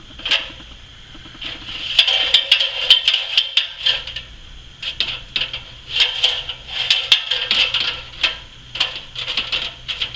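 Ladder rattling and clanking in repeated bursts of sharp knocks as it is handled and set against the roof.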